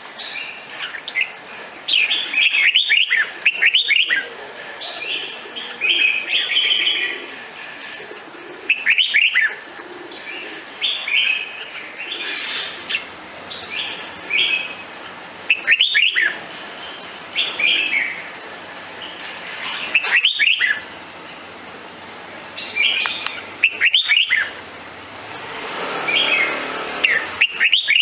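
Red-whiskered bulbul singing: short, loud, warbling phrases repeated every two seconds or so.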